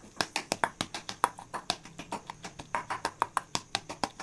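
Metal spoon mashing roasted, peeled eggplant in a stainless steel bowl, clicking against the bowl in quick, uneven taps, about four or five a second.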